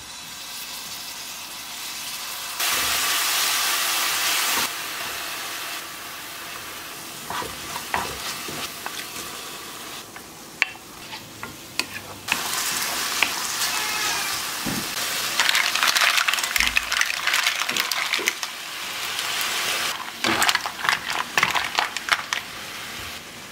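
Food sizzling and frying in oil in a frying pan, first minced garlic, then fusilli pasta and chopped vegetables, with a wooden spatula stirring and scraping. The sizzle comes and goes in steps. Near the end it gives way to a dense run of clicks and clatter as mussels in their shells are stirred into the pan.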